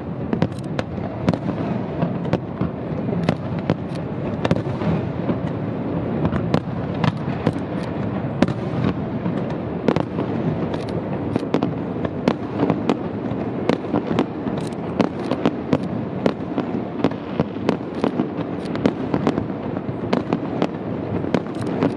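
Aerial firework shells bursting in rapid succession: dozens of sharp bangs, several a second, over a continuous rumble from the display.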